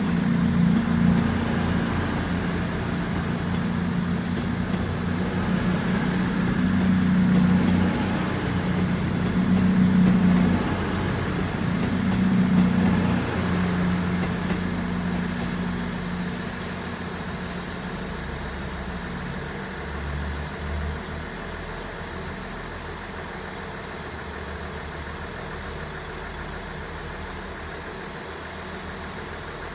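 CrossCountry Voyager diesel multiple unit pulling away from the platform, its underfloor diesel engines droning. The drone swells several times in the first dozen seconds, then fades steadily as the train leaves.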